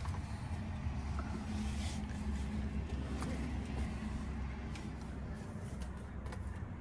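Van engine idling with a steady low hum, and a few faint clicks of handling in the cabin.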